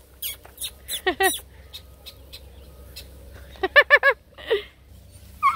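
Coonhound puppies yipping during play: short high yelps, two about a second in, then a quick run of four about two-thirds of the way through.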